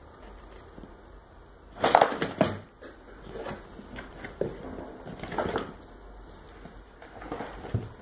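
Crinkling and rustling of a shiny red synthetic sheet as Maine Coon kittens scramble and play on it, in irregular bursts. The loudest burst comes about two seconds in, with smaller ones spread through the rest.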